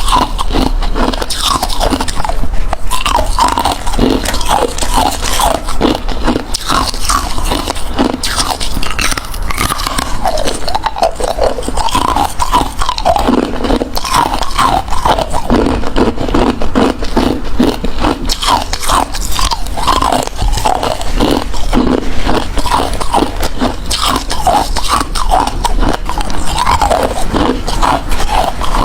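A person biting and chewing ice, close to the microphone, with loud, crunchy bites following one another without pause.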